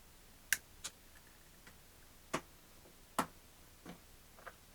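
A handful of short, sharp clicks and taps at irregular intervals, as small plastic parts of a foam RC plane's rudder linkage are handled and fitted.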